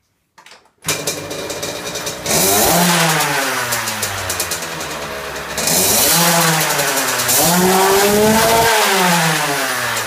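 KTM 50 two-stroke minibike engine starting about a second in, then revved up and down several times, its pitch rising and falling.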